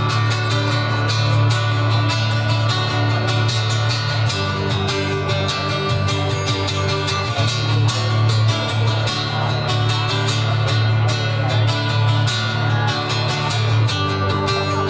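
Instrumental break in a live rock song, led by guitar over a steady low bass line, with no vocals.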